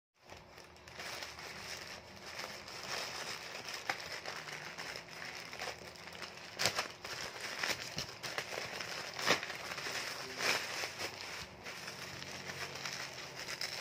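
A thin plastic mailer bag and bubble wrap crinkling and rustling as a parcel is torn open by hand, with several sharp crackles.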